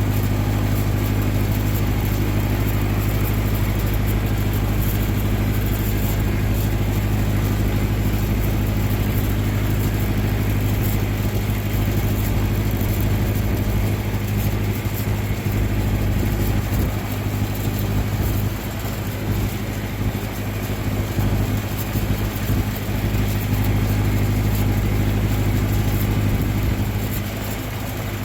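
John Deere tractor engine running steadily under load while mowing, easing off slightly twice.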